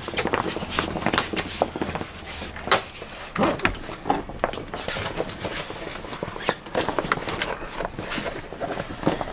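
Canvas tip-out's edge being peeled out of its plastic channel by hand: irregular clicks and scraping as the edge pulls free, with rustling of the canvas.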